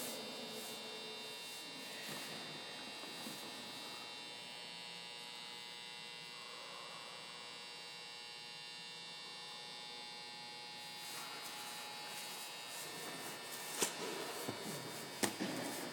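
Steady electrical hum made of several thin, high tones, with a few sharp knocks near the end.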